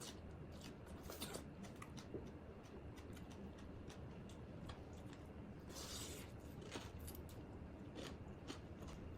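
Close-miked eating of a Thai glass noodle salad with pork crackling and raw vegetables: scattered small clicks and crunches, with a longer crunch about six seconds in.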